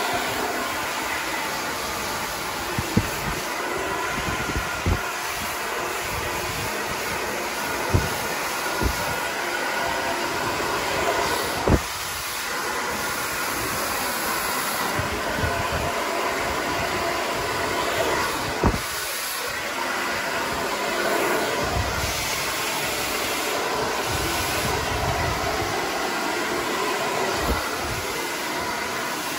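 Handheld hair dryer with a concentrator nozzle running steadily, blowing air through hair held on a round brush. A few sharp knocks break in now and then.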